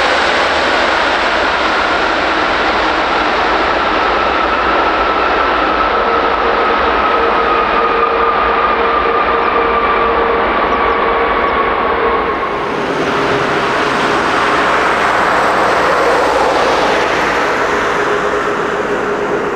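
Jet airliner engines running loud, a dense roar with a whine that slides slowly down in pitch. About twelve seconds in the sound changes, the whine gives way, and a lower steady tone carries on.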